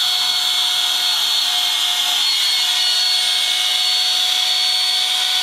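Small electric trim router running at a steady high whine while routing an aerated concrete block.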